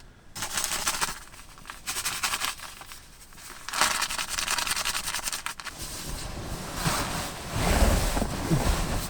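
The plastic wrapper of a disposable Mr. Heater hot pack being torn open and crinkled, in several crackly bouts. It gives way to heavier rustling and handling near the end.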